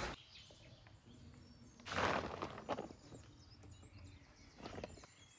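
Outdoor ambience with a burst of noise lasting about a second, some two seconds in, and a shorter one near the end, over faint high bird chirps.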